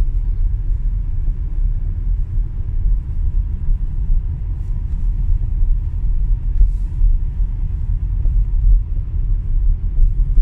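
Steady low rumble of a car's tyres and engine heard from inside the cabin while driving on a highway.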